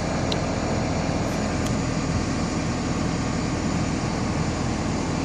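John Deere 310K EP backhoe's diesel engine idling steadily while it warms up after a cold start.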